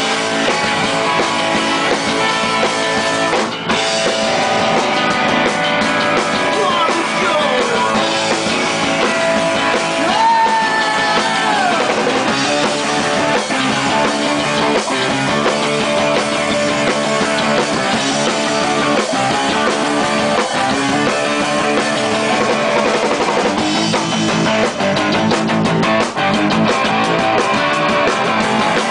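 Live rock band playing loud: electric guitar over a drum kit with cymbals, with a few sliding notes in the first dozen seconds.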